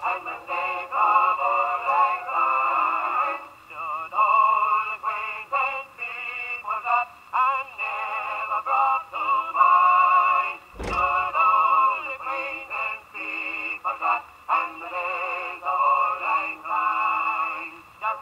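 A vocal 78 rpm record played acoustically on a 1921 Victor Victrola phonograph: a singer with a wavering vibrato, in a thin sound with little bass or treble. A single sharp click comes about eleven seconds in.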